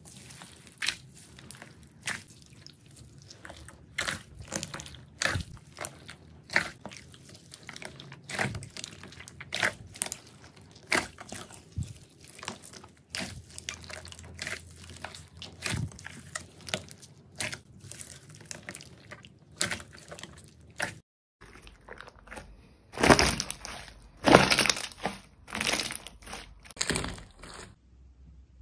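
Jelly slime being squeezed and poked by hand, giving irregular sharp wet pops and crackles, a few a second. After a short break about three-quarters of the way through, louder, noisier crackling squelches follow for a few seconds.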